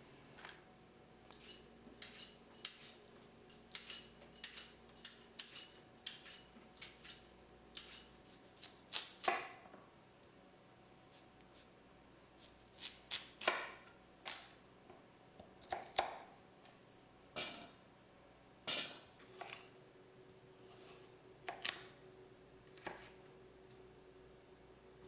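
Food being cut by hand: a run of sharp, irregular cutting clicks, pausing twice.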